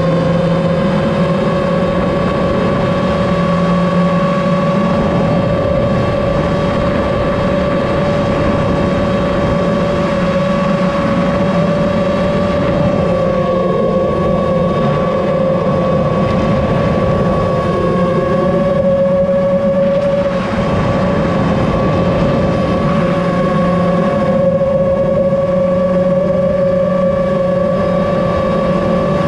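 FPV quadcopter's brushless motors and propellers whining at a steady, high pitch under cruising throttle, over the rush of air.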